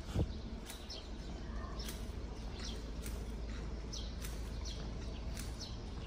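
Small birds chirping in short, downward-sliding notes, heard several times over the steady footsteps of someone walking on pavement at about two steps a second. A dull low thump sounds just after the start, over a steady low background rumble.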